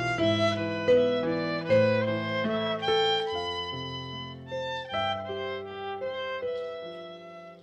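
Live violin played with bowed, held notes over a keyboard accompaniment with low bass notes, in a slow instrumental passage that grows softer toward the end.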